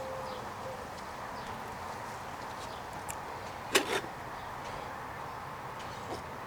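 A single short knock a little under four seconds in, over a steady background hiss, with a few faint ticks.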